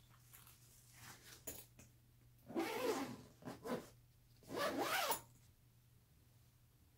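Zipper of a padded camera backpack being pulled shut in two long drags, with a few short tugs between them.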